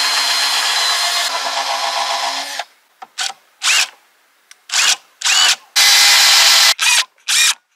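Cordless drill boring pilot holes into wooden planks: one run of about two and a half seconds, then a string of short bursts that each spin up and stop abruptly.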